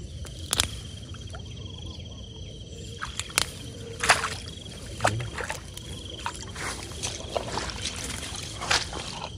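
Water sloshing and splashing, with several sharp splashes or knocks, the loudest about four seconds in. An insect trills steadily in the background.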